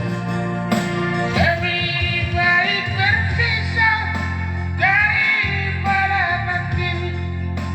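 A man singing a melodic song over instrumental backing, his voice rising and falling through sung phrases.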